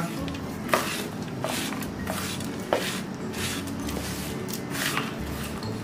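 Silicone spatula stirring a dry, crumbly mix of crushed edible gum, ground nuts and coconut in a steel pan: irregular gritty scraping and rustling strokes, one every half second or so.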